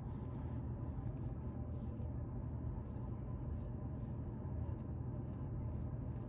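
Fingernails scratching through a beard to loosen dandruff: continuous close rasping, over a steady low hum.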